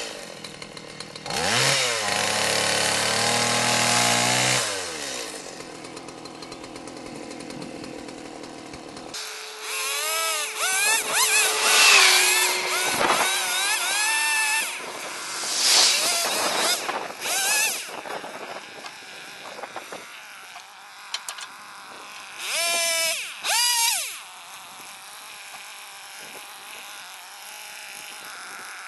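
Gasoline chainsaw revving up, dropping back to idle, then cutting in bursts, its engine pitch sagging and rising as it bites into the wood, with quieter spells between.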